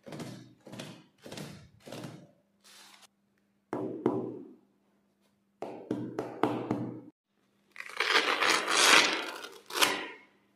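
Clear plastic packaging rustling and crinkling while a pair of boxing gloves is unwrapped and handled, in short separate bursts with soft knocks of the gloves, then a longer, louder crinkling stretch about eight seconds in.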